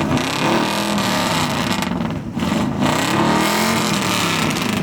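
Car engine revving hard, its pitch rising and falling several times in a row.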